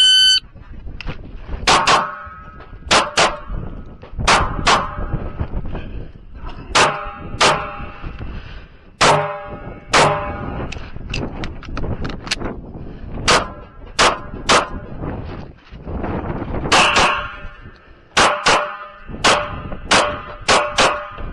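Shot-timer start beep, then an FN FNS-9 9mm pistol firing some two dozen shots across the stage, mostly in quick pairs. Several shots are followed by a short metallic ring. Wind buffets the microphone underneath.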